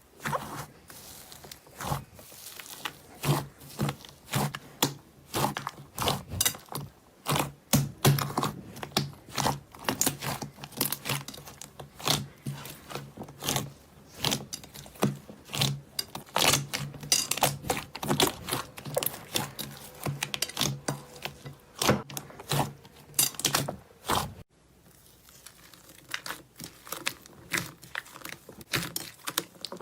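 Slime being squeezed and pressed by hand: a dense run of crackling, popping clicks, with a brief break about 24 seconds in.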